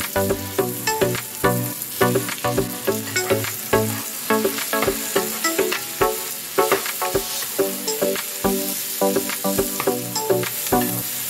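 Shallots, garlic, tomatoes and green chillies sizzling in hot oil in a nonstick wok as they are stirred with a wooden spatula. Background music with a steady beat plays over the sizzling.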